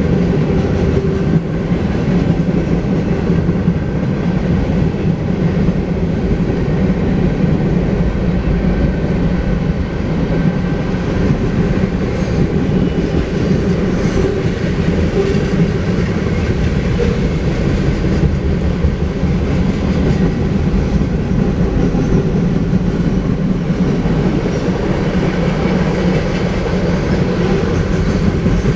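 Freight train cars rolling past at close range: a steady, loud rumble and clatter of steel wheels on rail.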